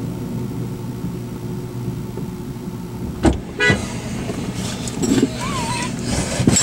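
Steady low hum of an idling vehicle engine, with a few knocks and rattles after about three seconds and a loud thump at the very end.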